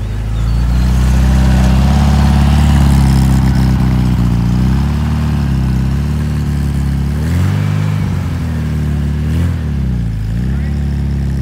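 A vehicle engine running close by, steady at first and then revved down and up several times in the second half, its pitch dipping and rising.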